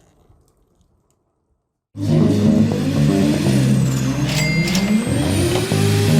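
Near silence for about two seconds, then a car engine cuts in suddenly, loud and accelerating, with a high whine over it. About halfway through its pitch drops with a couple of sharp clicks, as at a gear change, then climbs again.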